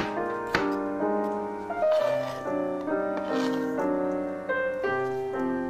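Gentle piano background music. Over it come two sharp knife chops on a cutting board, at the start and about half a second in, as a bell pepper is sliced.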